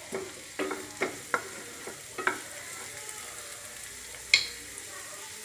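Chopped onions and diced capsicum sizzling softly in a frying pan while a wooden spatula stirs them, knocking and scraping against the pan about six times in the first two and a half seconds. One sharper clack comes a little after four seconds in.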